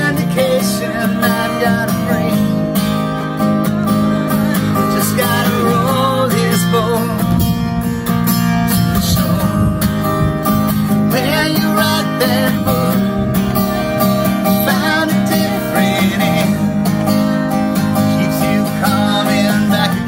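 Acoustic guitar strummed in a steady rhythm, with a man and a woman singing over it from time to time.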